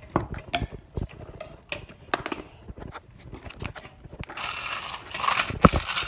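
Hammer knocking and clattering on a gutted DirecTV satellite receiver, its circuit board and metal chassis, on a concrete floor: a run of light taps and clicks, then a harsher crunching stretch in the last two seconds with one loud strike.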